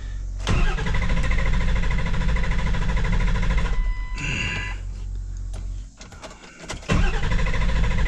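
Starter cranking a 7.3 L Power Stroke V8 turbo-diesel that turns over but will not fire. It cranks for about five seconds, stops briefly, then cranks again about a second later.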